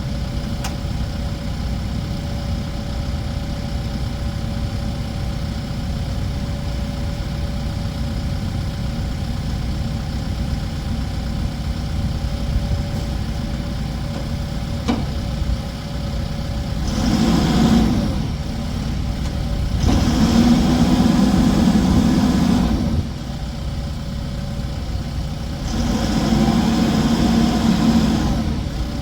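Case 580N backhoe's four-cylinder diesel engine idling steadily. In the second half it comes up three times under load for two to three seconds each before settling back to idle.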